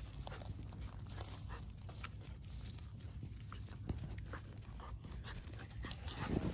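A basenji and a Shetland sheepdog puppy play-fighting on dry dirt and grass: scattered scuffles of paws and bodies, with a short louder sound just before the end.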